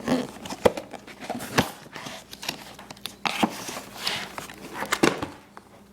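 Toy packaging being handled and pulled open: irregular clicks, knocks and crinkles of cardboard and plastic.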